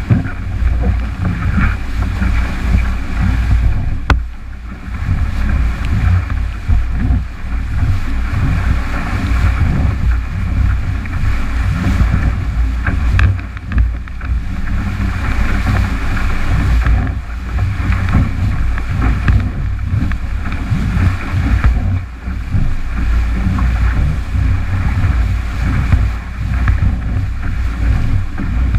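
Strong wind buffeting a boat-mounted action camera's microphone, over the steady rush of water and spray along the hull of a 29er skiff planing at speed.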